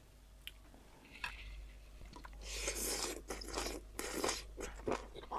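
A person chewing and crunching food close to the microphone, with a few small clicks early on and crunching from about halfway.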